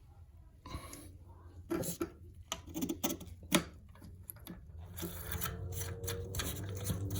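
Hands working the plastic parts of a toilet fill valve: irregular clicks, knocks and scraping rubs. A steady low hum comes in about five seconds in.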